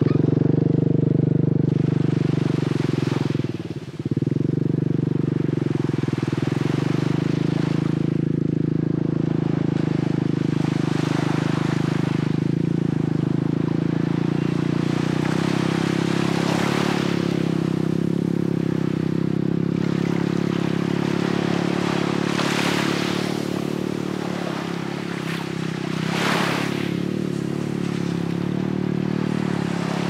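An engine runs steadily with a low drone, dipping briefly about four seconds in. Small waves wash onto the sand every few seconds.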